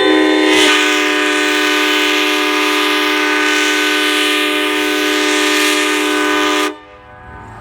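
Nathan Airchime K5LA five-chime locomotive air horn from MBTA F40 1036, blown unrestricted. It sounds one loud, steady chord for about six and a half seconds, then cuts off sharply, leaving a fainter hiss.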